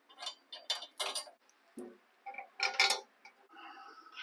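Steel bolts clinking against a steel suspension bracket and truck frame as they are pushed into their holes by hand: a run of short, sharp metallic clicks in the first second or so and another cluster near three seconds in.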